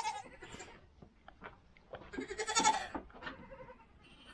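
A goat bleating: one wavering bleat of nearly a second about two seconds in, after the tail end of another right at the start, with a few faint knocks in between.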